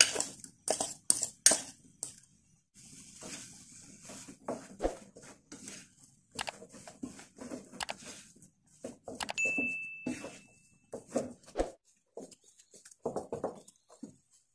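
Silicone spatula scraping mashed potato out of a glass bowl into a non-stick frying pan, with a quick run of sharp clinks near the start, then irregular scrapes and soft taps as the mash is stirred and pressed flat in the pan.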